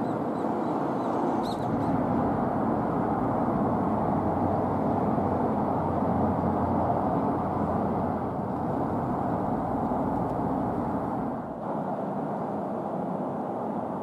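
Steady background rumble of motor traffic, with a brief dip about eleven and a half seconds in.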